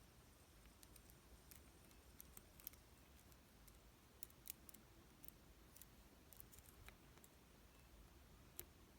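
Faint, scattered light clicks of a lock pick working the pins of a slot machine lock, at irregular intervals.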